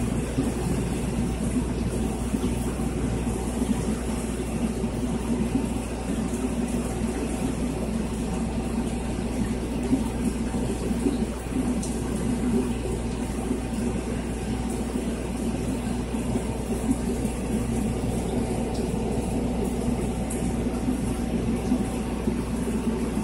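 Aquarium pumps and filters running: steady rushing, trickling water over a constant low hum.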